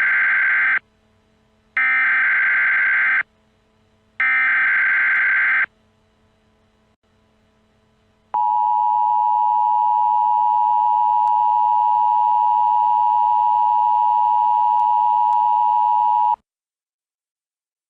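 Emergency Alert System alert start, made with an EAS generator: three harsh, buzzy SAME header data bursts, each about a second and a half long, with short pauses between them. After a few seconds of quiet, the steady two-tone EAS attention signal sounds for about eight seconds and cuts off.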